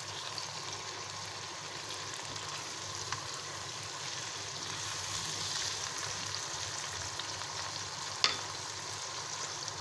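Chicken, tomatoes and onion sizzling steadily in hot oil in a wok as a spatula stirs them, with one sharp click a little after eight seconds in.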